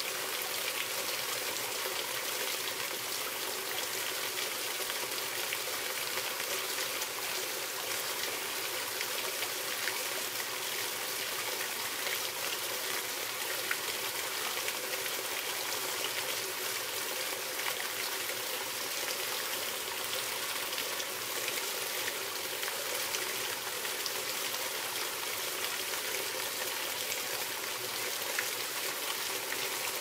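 Steady rush and splash of a small rocky jungle stream running over stones.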